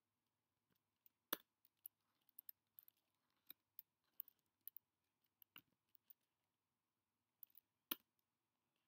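Faint, scattered keystrokes on a computer keyboard: short clicks at irregular intervals, with two louder ones about a second in and near the end.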